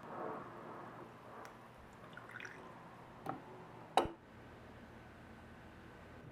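Faint handling noises with a few light clicks, and one sharper click about four seconds in.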